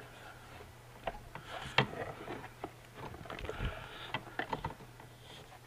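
Honda EU2000i generator engine being turned over slowly by hand to bring it to top dead centre: scattered small clicks and knocks from the exposed valve train and housing, the sharpest about two seconds in and a quick run of ticks near the end, with soft rustling between them.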